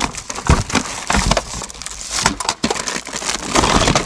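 Hands rummaging through a cardboard box of PVC electrical conduit bends, junction boxes and plastic-wrapped fittings: plastic packaging crinkling and rigid plastic parts clicking and knocking together, in irregular bursts of rustles and clacks.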